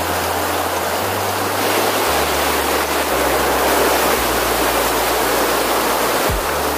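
Stream water rushing and splashing over rocks, a loud steady rush.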